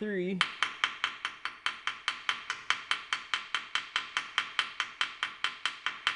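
Rapid, even hammer blows on the fresh stitch weld of a cast-iron tractor axle housing, about six a second, each with a short metallic ring.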